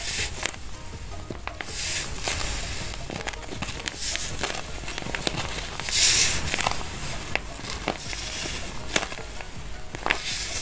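Paper squishy crinkling and crackling as it is squeezed by hand. The crackles come in repeated surges, the loudest about six seconds in.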